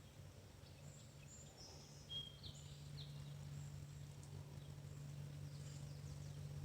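Quiet outdoor ambience by a river: a steady low hum that grows slowly louder, with a few faint, short high chirps about two to three seconds in.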